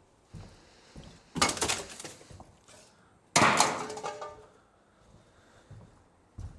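Two loud crashes of debris being thrown down inside a shipping container, about two seconds apart, the second one ringing on briefly.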